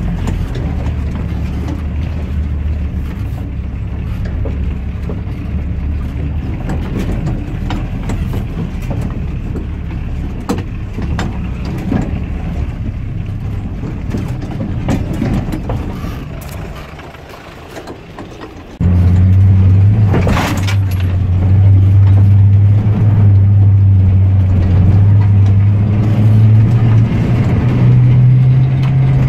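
Vehicle engine running while driving along a bumpy dirt track, heard from inside the cab as a steady low hum. About two-thirds of the way through, the sound jumps abruptly to a louder, higher engine note that climbs slowly in pitch.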